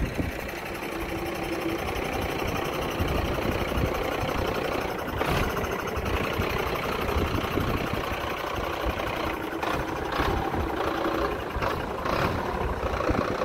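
Mercedes-Benz Atego 824's four-cylinder diesel engine idling with a steady low rumble, a few short knocks in the second half.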